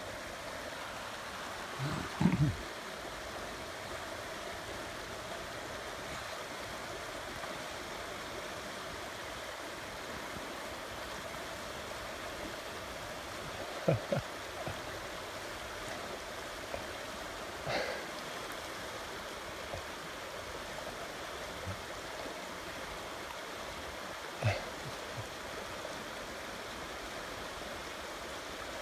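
Shallow river running steadily over a cobble bed, an even rushing wash of water, with a handful of brief thumps and knocks standing out above it.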